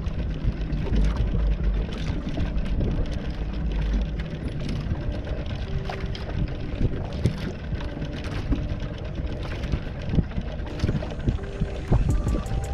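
Fishing boat under way: a steady low engine rumble with wind and water noise and irregular knocks. Music comes in near the end.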